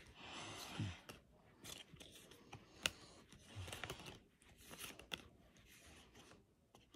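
Pokémon trading cards being handled one after another: soft slides of card against card, with faint, irregular clicks and flicks, the sharpest a little before halfway.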